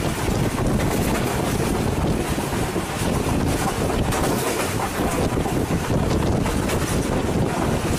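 Heavy wind rushing over the microphone at an open window of a moving railcar, with the train's running noise underneath.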